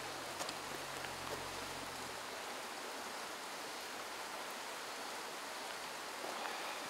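Steady rushing of a nearby mountain stream, with a few faint clicks in the first second or so.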